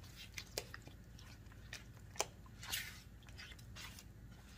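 Stirring a thick, creamy casserole mixture in a mixing bowl: faint soft squishing, with scattered light clicks of the utensil against the bowl.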